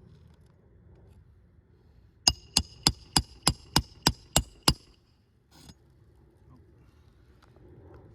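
Roofing hammer driving a roofing nail through an asphalt shingle: nine quick, ringing strikes at about three to four a second, then one softer knock.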